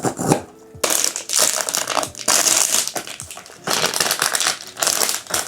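A blind box's packaging being opened by hand: the wrapper is torn and crinkled in two long stretches of loud crackling.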